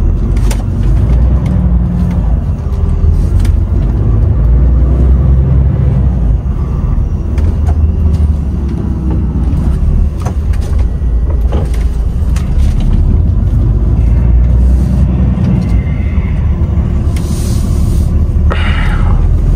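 DAF XF truck on the move: a steady, loud low rumble of engine and road.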